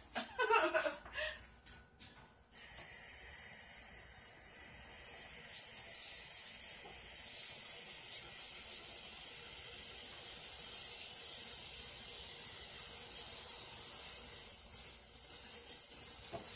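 A steady, high hiss that starts suddenly about two and a half seconds in and holds even.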